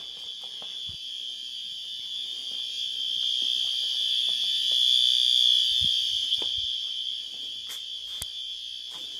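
Electronic fire alarm horn, a System Sensor SpectrAlert Advance set to continuous, sounding one steady unbroken high-pitched tone. It grows louder through the middle and then eases off again.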